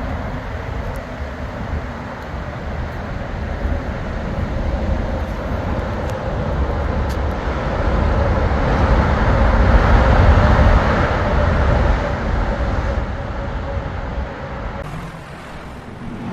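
Outdoor traffic noise: a vehicle's rumble and tyre noise builds to a peak about ten seconds in, then fades as it passes.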